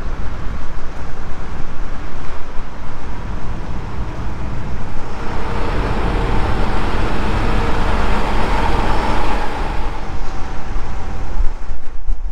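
Low vehicle rumble and road noise, swelling for several seconds about five seconds in, then easing off.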